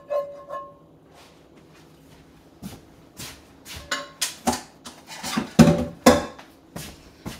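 A spatula scraping out a nonstick frying pan, with a short ringing clank from the pan. After a pause, a run of clanks and clatters of dishes and utensils being handled at the kitchen sink.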